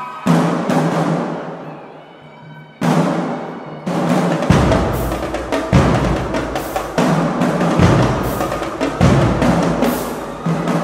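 Marching drumline of snare drums, tenor drums, marching bass drums and crash cymbals playing a percussion feature. It opens with two big cymbal-and-drum hits that ring out, then about halfway in the full line comes in with deep bass drums and cymbal crashes accenting roughly once a second.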